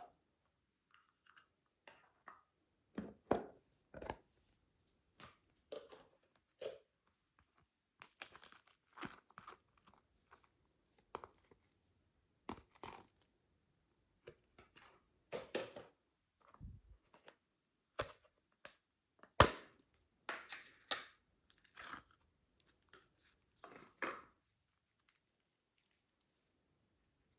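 Slime being squeezed and pulled in a plastic bag: irregular sticky tearing and crackling, with crinkles and a few sharper snaps.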